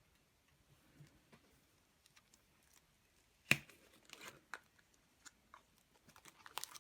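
A Kinder Surprise egg being opened by hand: faint crinkles and small clicks, then a sharp crack about three and a half seconds in, followed by about a second of rustling, and a few more clicks near the end.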